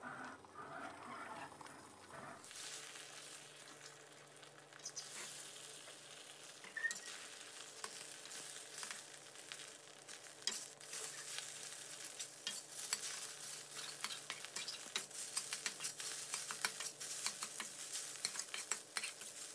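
Beaten eggs sizzling in hot oil in a stainless steel wok while a metal wok spatula scrapes and knocks against the pan, chopping the set omelette into pieces. The sizzle swells a few seconds in, and the spatula strikes come thick and fast in the second half.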